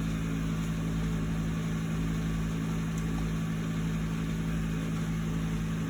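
Steady low mechanical hum with a constant drone and a low rumble, like an idling engine or a running motor.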